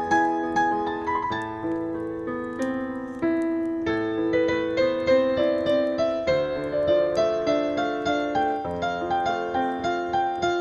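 Solo piano playing a slow, gentle melody over chords, each note struck and left to fade. Faint crackling of a fireplace sounds underneath.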